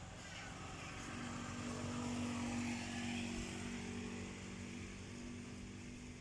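A motor engine running with a steady hum, growing louder to about two or three seconds in and then slowly fading, as when a vehicle passes.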